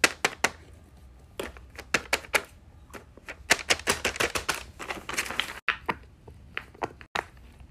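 Silicone pop-it fidget bubbles being pressed with fingers: a quick, irregular string of small pops and clicks, most crowded in the middle.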